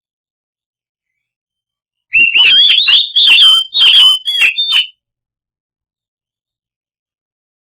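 Oriental magpie-robin (kacer) song: a loud burst of about three seconds of quick whistled phrases mixed with sharp clicking notes. It starts and stops abruptly, with silence on either side.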